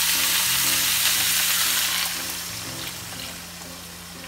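Jackfruit chunks and onions sizzling in an oiled skillet as water is poured into the pan; the sizzle is loud at first and dies down about two seconds in.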